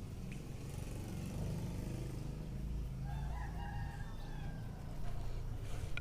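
A rooster crowing once, a drawn-out call that falls slightly in pitch, about three seconds in, over a steady low rumble.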